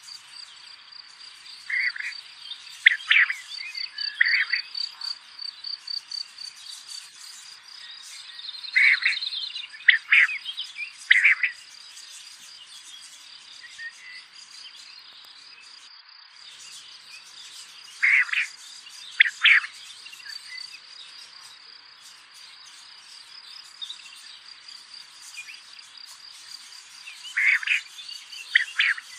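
Insects trilling steadily at a high pitch, with a bird calling in short groups of two or three notes about every eight to nine seconds.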